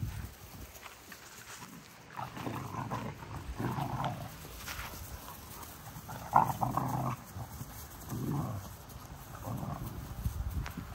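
XL American Bully puppies vocalizing in several short bouts as they play-fight with each other.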